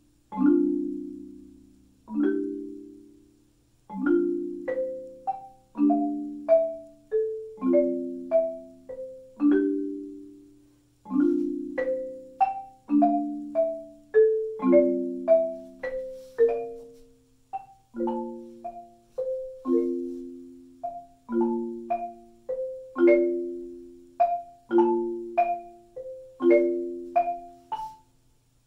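Solo marimba played with four mallets: low chords of two or three notes struck every second or two, each ringing out and dying away, with a melody of single higher notes between them that gets busier a few seconds in.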